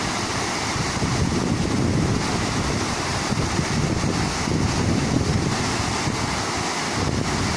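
Two small river waterfalls pouring over rocks into a pool: a steady, full rush of falling water.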